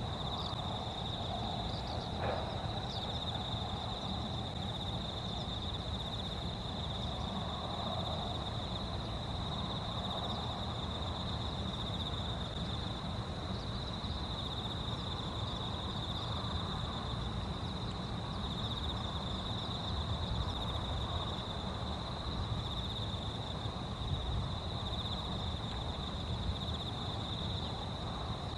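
A steady, continuous chorus of insects with a high, even trill, over a low rumble of wind and handling noise on the microphone.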